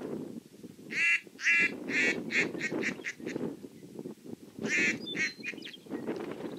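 Duck call blown in a run of quacks, the first ones long and the following ones shorter and quicker, then a second short run of three or four about five seconds in. Wind rumbles on the microphone underneath.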